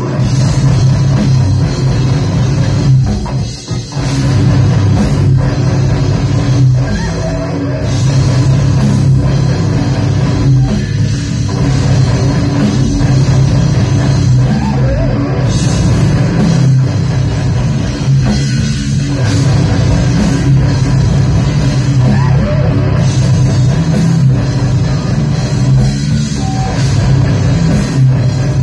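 Live heavy rock band playing loud, with drum kit and guitars, and a brief break about three and a half seconds in.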